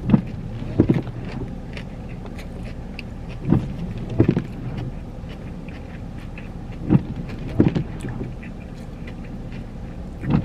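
Someone eating a burger in a car: short chewing and mouth sounds in pairs every few seconds, over the car's steady low hum.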